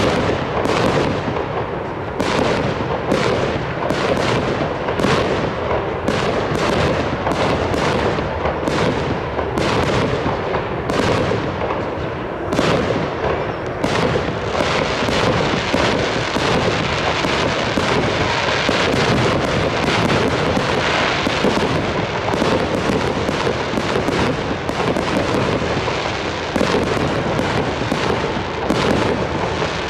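Fireworks display: a steady series of shell launches and bursts, one to two bangs a second, with the gaps filling in with a continuous crackle about halfway through.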